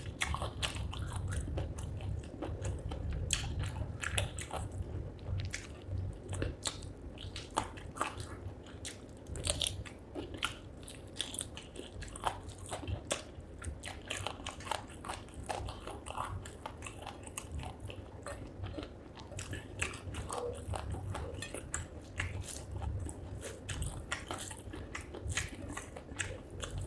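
Close-miked eating of spicy chicken feet curry with rice: steady biting and chewing with frequent crunches and many sharp, irregular mouth clicks.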